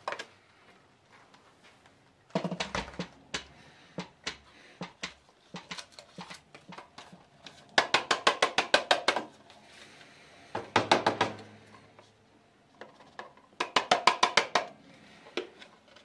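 Clear plastic dust canister of a Dibea F20 Max cordless stick vacuum being tapped and knocked to shake the dust out, in four quick runs of rapid taps, the longest about a second and a half.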